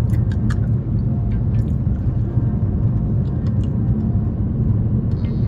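Car on the move, heard from inside the cabin: a steady low rumble of road and engine noise, with a few light clicks over it.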